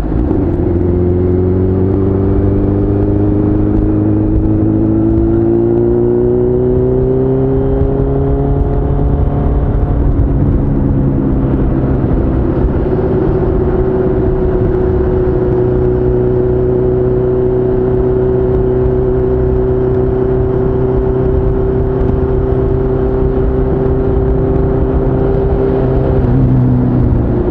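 Suzuki GSX-R1000 inline-four sport-bike engine under way: its pitch climbs steadily over the first ten seconds or so as the bike speeds up, then holds at a steady cruise and dips slightly near the end.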